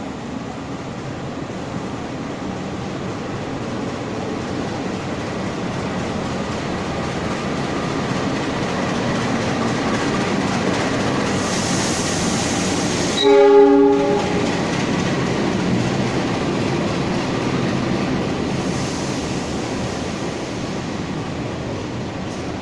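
Passenger train rolling through a station: a steady rumble of wheels on rails that swells and then fades, with one horn blast of about a second roughly halfway through.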